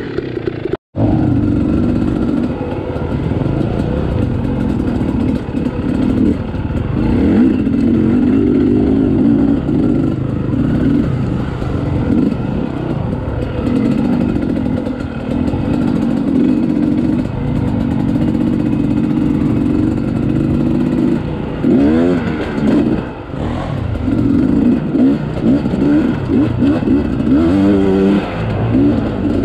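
Dirt bike engine running under load, the throttle opened and closed over and over as the bike picks its way along the trail, with quick rising revs about 22 seconds in and again near the end. The sound cuts out for a moment about a second in.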